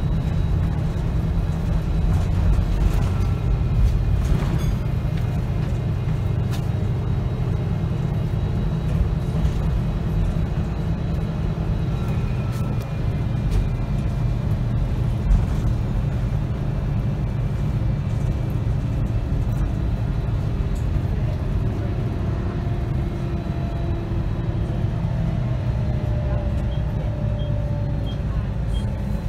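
Volvo B7RLE bus's six-cylinder diesel engine and ZF automatic gearbox running on the move, heard from inside the saloon as a steady low drone. A gearbox whine drifts down in pitch near the end.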